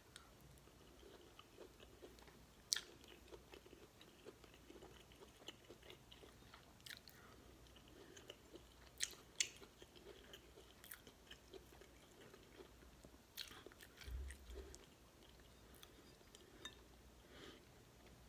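Faint, close-miked chewing and mouth sounds of someone eating beef stew and cornbread, with scattered sharp clicks.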